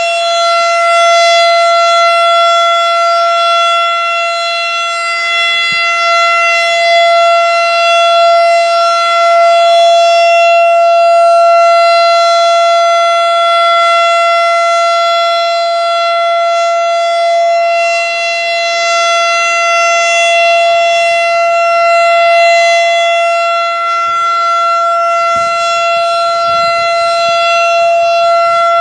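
Federal Signal STH-10 rotating warning siren sounding its Alert signal: one steady, unbroken tone that holds its pitch while its loudness swells and dips slightly.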